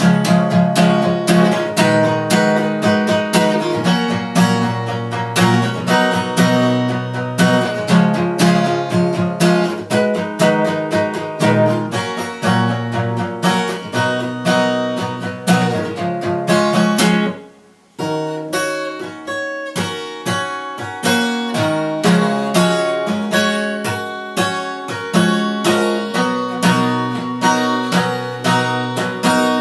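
Acoustic guitar playing chords in a steady rhythm, with no singing. The playing breaks off for about half a second a little past the middle, then starts again.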